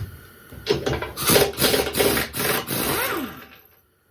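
Rough scraping strokes, several quick ones in a row, stopping suddenly about three and a half seconds in.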